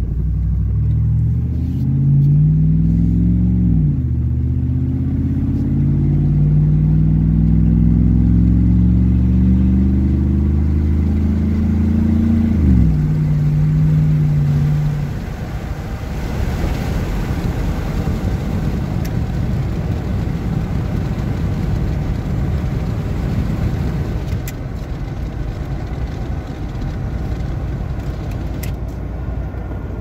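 Vehicle engine breathing through a Cherry Bomb 8-inch glasspack muffler, heard from inside the cab as it accelerates: the exhaust note climbs in pitch and drops sharply twice at upshifts. About halfway through the engine note falls away and only a steady, quieter road noise remains.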